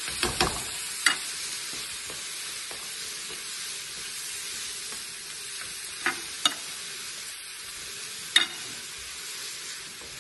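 Shrimp frying in butter in a pan, a steady sizzling hiss as they are stirred with a wooden spoon. A few sharp utensil clinks stand out, about a second in and again around six and eight seconds in.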